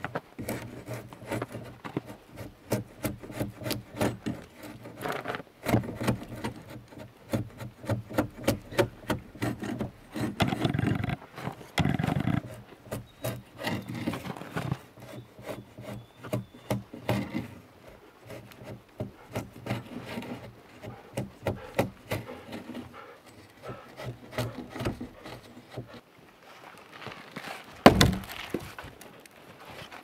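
Drawknife shaving a peeled log, with many quick scraping strokes of the steel blade across the wood. Near the end comes one heavy thump.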